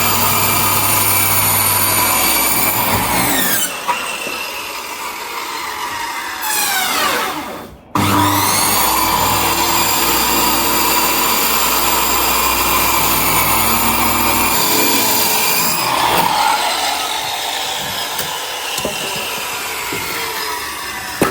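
High-speed electric power tool run in bursts. It runs at speed and winds down with falling pitch a few seconds in, runs again briefly, then starts up and runs steadily for about eight seconds before winding down again.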